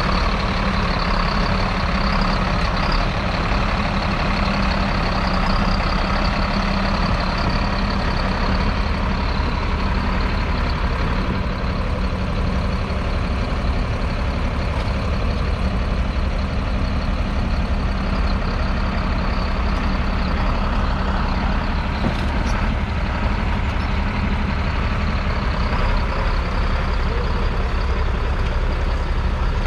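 A John Deere 4455's 7.6-litre six-cylinder diesel engine runs steadily under load while pulling a five-furrow reversible plough.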